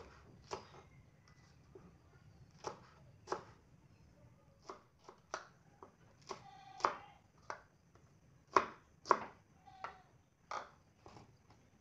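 Kitchen knife slicing green chillies on a wooden cutting board: irregularly spaced sharp knocks of the blade striking the board, one or two a second.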